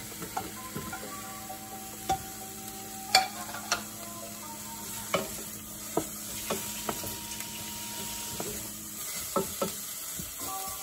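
Radish slices and onions sizzling in oil in a stainless steel pan while a wooden spoon stirs them, with scattered sharp knocks of the spoon against the pan.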